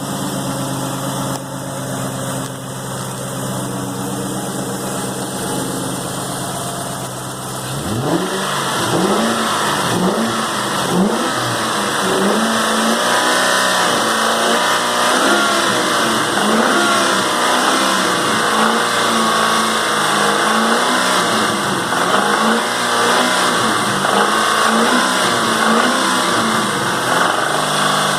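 2001 Mustang Cobra's 4.6-litre four-valve DOHC V8 idling steadily, then revved up and down repeatedly from about eight seconds in, about once a second. The owner reports a knock from the engine under light load.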